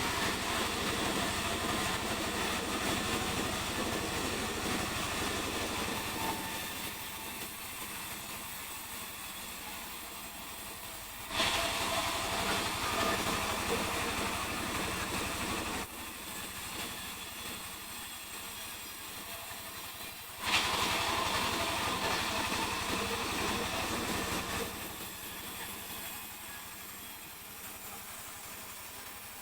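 Sawmill saw running and cutting mahogany in repeated passes. The sound jumps suddenly louder about every nine seconds, then steps down to a quieter run before the next pass.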